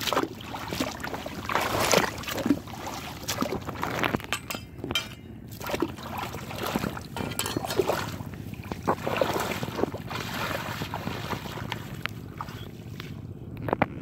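Shallow muddy water in a flooded rice paddy splashing and sloshing irregularly as a person wades and works in it by hand.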